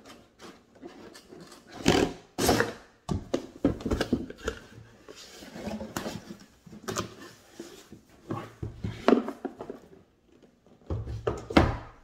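Cardboard packaging of a T3 hair dryer being handled on a wooden table: the moulded paper insert and box flaps rustling and sliding, with several knocks and thuds as the box is closed and set down. The loudest thuds come about two seconds in, about nine seconds in, and near the end.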